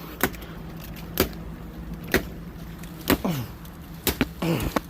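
Machete blade chopping into a tree's wood, sharp strikes about once a second, a few of them in quick pairs.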